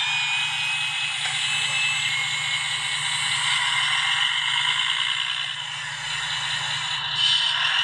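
Steady outdoor chorus of insects and frogs, with light rattling of small toy-truck wheels rolling over gravel.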